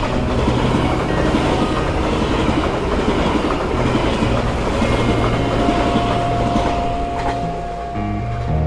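Train passing close by, its wheels running over the rails with a steady clatter and roar. A thin, steady whine comes in about five and a half seconds in.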